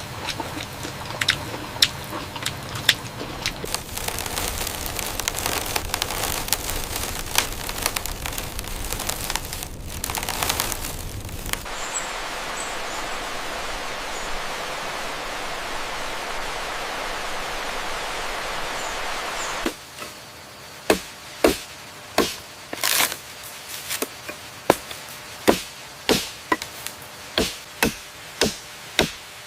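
A steady crackling hiss that cuts off abruptly about two-thirds of the way through, then sharp, evenly paced tool strikes on bamboo, about one and a half a second.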